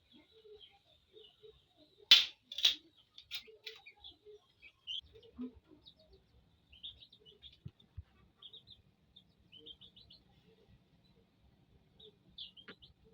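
Small birds chirping in short repeated bursts, with two sharp knocks a little over two seconds in.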